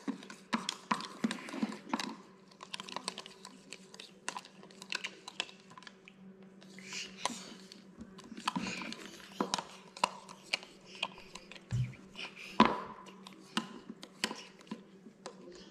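Metal spoon stirring yeast and warm water in a plastic cup: irregular light clicks and scrapes of the spoon against the cup, with a louder knock near the end.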